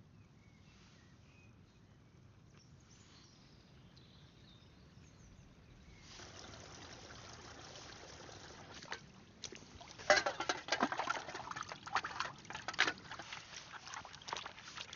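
Forest stream trickling, faint at first and louder from about six seconds in, with a busy, irregular run of sharp splashes and clicks from about ten seconds in.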